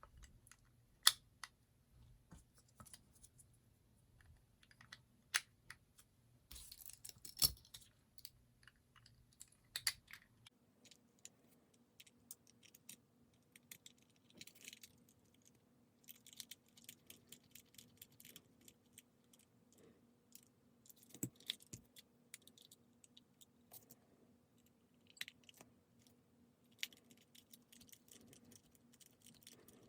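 Quiet, scattered clicks and taps of a small die-cast toy car's metal body, plastic base and short screws being handled and screwed together, with a few sharper clicks among them.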